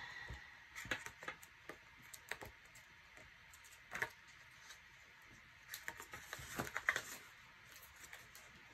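Paper pages of a sticker book being leafed through and handled: scattered soft rustles and light taps, with a busier flurry about six to seven seconds in.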